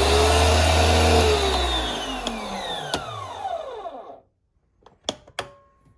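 Karcher K1700 Cube electric pressure washer motor and pump switching on with a low hum and running for about a second and a half. It then shuts itself off and spins down with a falling whine over the next few seconds as the hose fills and the system comes up to pressure. Two sharp clicks follow near the end.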